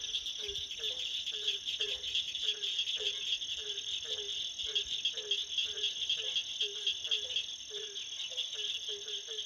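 A frog calling over and over, a short low note that drops slightly, about two to three times a second. Behind it is a steady high drone of night insects.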